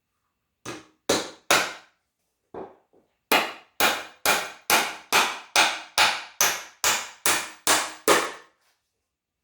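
Hammer driving nails into wooden framing boards. A light setting tap comes first, then two hard blows and another tap, then an even run of about a dozen hard blows at roughly two a second.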